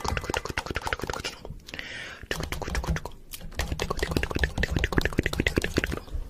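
Rapid, irregular clicking and tapping, many strokes a second, with a short hiss about two seconds in and a low rumble under the clicks from about halfway.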